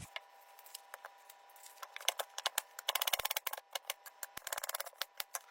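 A knife slicing an onion on a chopping board: a series of sharp taps as the blade meets the board, with a quick run of strokes about three seconds in.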